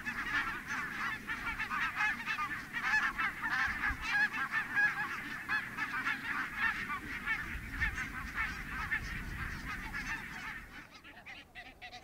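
A large flock of barnacle geese calling, a dense chorus of overlapping honks that fades away about a second before the end.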